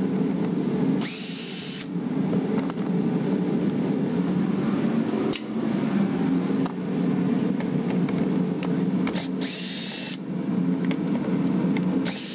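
Cordless drill/driver backing out panel bolts, its motor whining in short bursts that rise as it spins up: about a second in and again near the end. A steady low hum runs underneath.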